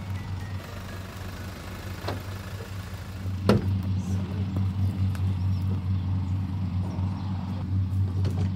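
Low, steady hum of a Toyota HiAce van's engine idling. A single sharp knock comes about three and a half seconds in.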